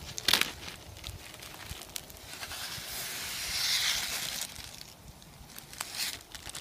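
Dry buckwheat groats poured from a crinkling plastic zip-top bag into a mess-kit pot of boiling broth. The bag crackles first, then the grains run in with a hiss that swells and fades over about two seconds, and the bag crackles again near the end.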